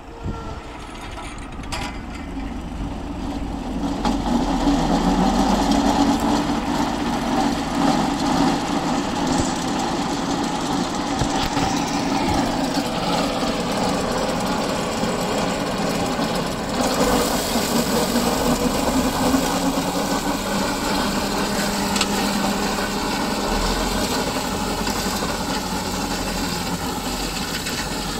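Tractor engine with a Tinaz drum mower running behind it, building up over the first few seconds and then running steadily. From about seventeen seconds in, a broad hiss of the spinning mower discs cutting grass joins the engine.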